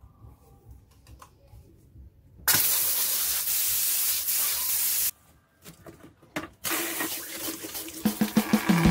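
Water from an outdoor tap on PVC pipework gushing out and splashing, starting suddenly about two and a half seconds in and cutting off sharply two and a half seconds later. After a few clicks the flow starts again and runs on, with music coming in near the end.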